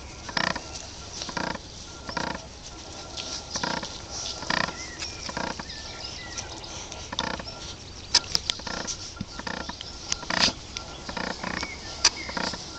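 Four-week-old Newfoundland puppies giving short grunts and yips as they play, about a dozen brief calls at uneven intervals.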